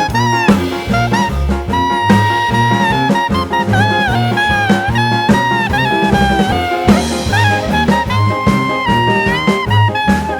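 Background jazz music with a brass or saxophone lead playing a sliding melody over a steady bass line and drum beat.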